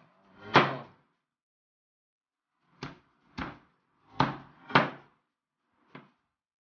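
Large cleaver-type kitchen knife chopping through a raw chicken's backbone onto a plastic cutting board: six sharp chops. The loudest comes about half a second in, then after a two-second pause four more follow in quick succession, and a lighter one comes near the end.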